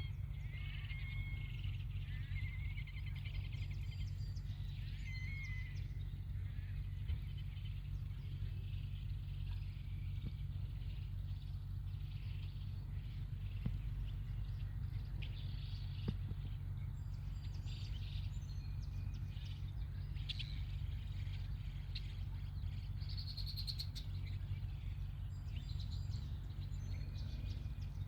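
Outdoor pond ambience: many short high bird chirps and peeps scattered throughout, over a steady low rumble.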